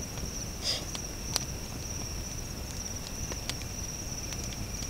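Insects chirring steadily in a continuous high trill, with a few short clicks, two of them sharper, about a second and a half and three and a half seconds in.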